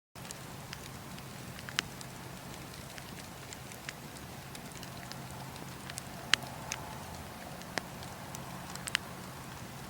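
Wood bonfire crackling: a steady hiss broken by sharp pops and snaps at irregular intervals, the loudest about six seconds in.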